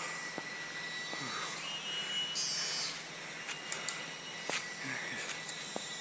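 Rainforest ambience: a steady high insect drone, with a short buzzing call about halfway through and a few soft footfalls on dry leaf litter.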